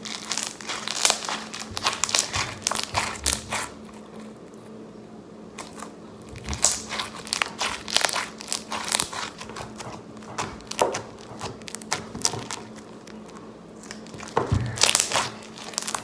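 Floam slime being squeezed and stretched by hand, its foam beads crunching and crackling in several bursts of quick pops with short pauses between.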